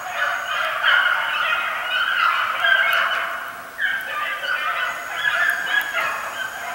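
A chorus of many animal calls, overlapping without a break.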